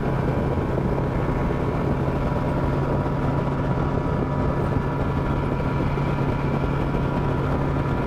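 Two-stroke outboard motor of a bass boat running steadily at speed: a constant drone with the rush of wind and water.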